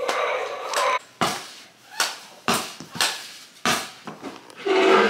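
A run of sharp knocks, about one every half second to a second, each dying away quickly, with a child's voice at the start and again briefly near the end.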